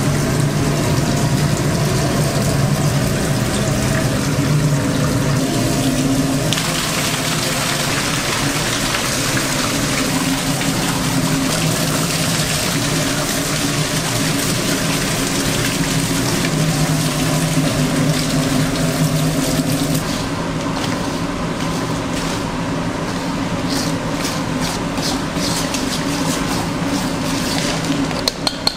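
Restaurant kitchen noise: a steady hum of running equipment under a continuous rushing, water-like sound. Light clatter of pots and utensils comes in for the last several seconds.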